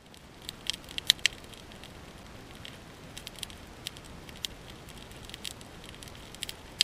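Freshly lit campfire crackling and popping as its bundle of dry spruce-twig tinder burns on top of split wood, with irregular sharp snaps, the loudest about a second in.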